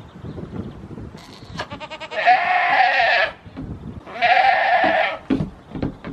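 Goat bleating: two long bleats, the first wavering at its start and lasting nearly two seconds, the second shorter about a second later.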